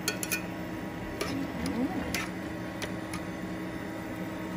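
Metal spoon clinking and scraping against the inside of a tin can while the canned sardines are scooped out: a handful of separate sharp clicks over a steady background hum.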